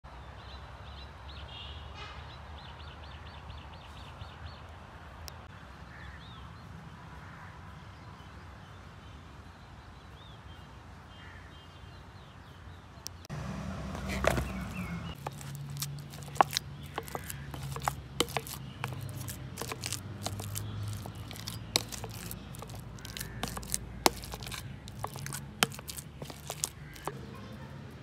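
Birds calling over a quiet outdoor background for about the first thirteen seconds. Then boiled potato chunks are tipped from a steel mesh strainer into a plastic bowl with a loud knock, followed by a long run of sharp clicks and knocks as the potatoes are mashed in the bowl.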